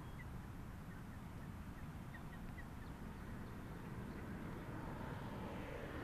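Several faint, short duck calls in the first half over a low, steady background rumble that slowly grows louder toward the end.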